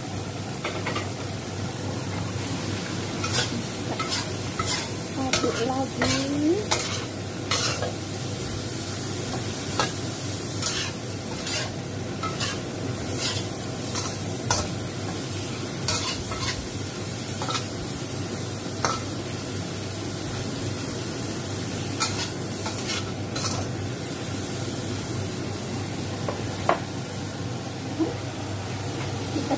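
Shell-on shrimp and spring onions stir-frying in a wok: a steady sizzle, with the spatula scraping and knocking irregularly against the wok as the food is tossed.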